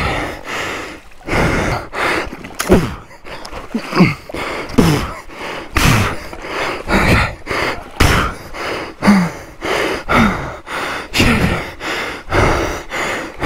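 Men breathing hard, with gasps and short grunts of effort while straining to lift a heavy waterlogged motorcycle, and scattered thuds and knocks in between.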